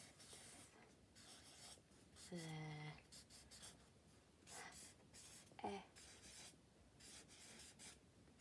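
Pen scratching across paper in short, quiet strokes as words are handwritten. About two and a half seconds in there is a brief low hum, and another short pitched blip a little before six seconds.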